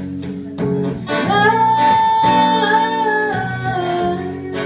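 A woman's voice sings a wordless held note over strummed guitar in a live bluesy song. The note slides up about a second in, holds for about two seconds, then falls away near the end.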